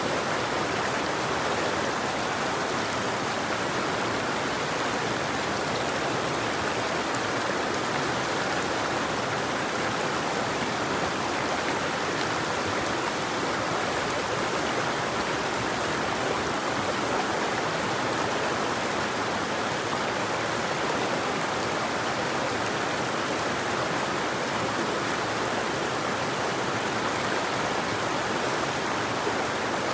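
River water flowing over rocks in a steady, even rush, with no birds or other sounds standing out.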